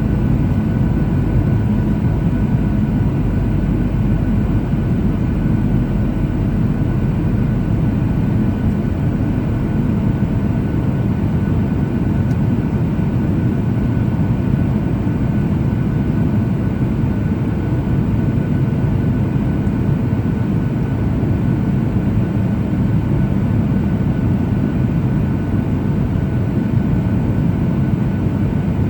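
Steady cabin noise of a Boeing 737-800 in flight: a loud, low rush of airflow and its CFM56-7B turbofan engines, with a few faint steady engine tones above it.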